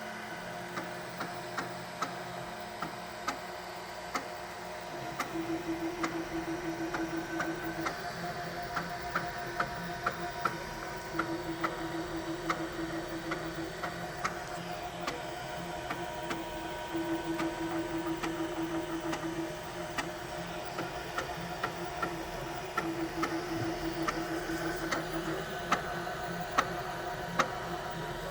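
QIDI X-Plus 3D printer running, its motors humming in repeating passes of a few seconds, with a regular sharp tick a little under twice a second. This is the weird sound the owner is concerned about.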